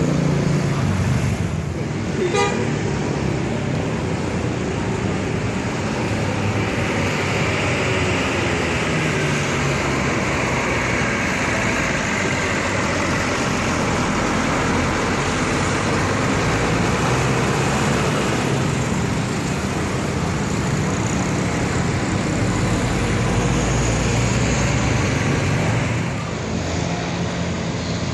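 Tour bus diesel engines running amid steady road traffic, with toots from a bus's telolet horn.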